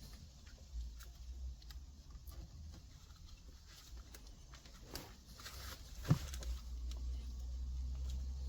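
Hands fitting the gear-lever gaiter and plastic console trim: scattered light clicks and rustles of plastic, with a sharper knock about six seconds in.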